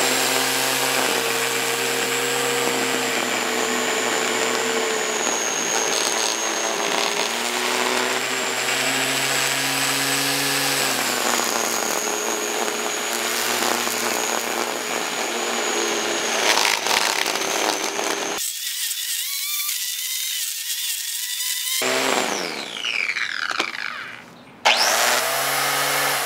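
Black & Decker corded electric string-trimmer mower running under load, its motor whine with the line cutting thick grass, sagging slightly in pitch twice as it bites in. Near the end the motor winds down with a falling whine, then starts up again.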